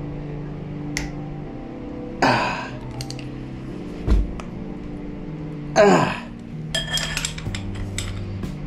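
Metal clanks and clinks of a wrench and socket being worked on the cam sprocket bolt: two sharp ringing clanks a few seconds apart, a dull thud between them, and a run of quick clicks near the end. Background music plays under it.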